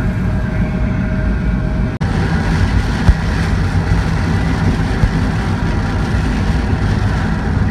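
Steady rumble of a car driving through heavy rain on a wet road, heard inside the cabin: engine and tyre noise with rain hiss. The sound briefly cuts out about two seconds in, and there is one sharp knock about a second later.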